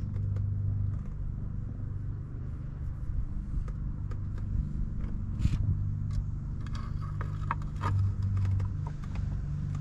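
Steady low machine hum, with scattered light clicks and scrapes of handling.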